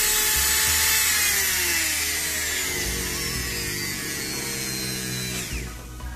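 Ingco mini grinder (handheld rotary tool) running free with a high whine that dips and rises in pitch, then winding down and stopping about five and a half seconds in.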